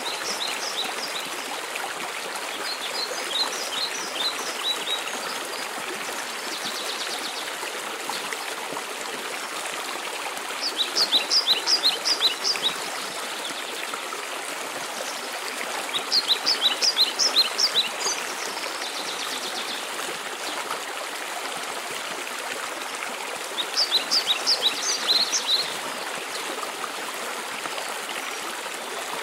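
Waterfall rushing steadily, with a songbird repeating a short phrase of quick high notes every five to seven seconds.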